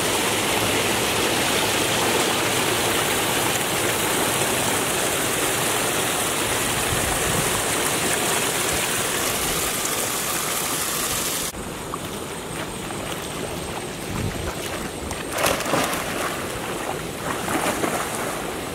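Steady rushing of water pouring over a rocky spillway. About eleven seconds in it cuts abruptly to quieter river water, with a few splashes from a boy swimming.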